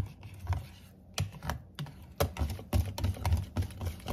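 Wire balloon whisk beating thick batter in a ceramic bowl, its wires clicking and knocking against the bowl about three times a second, with a short lull about a second in.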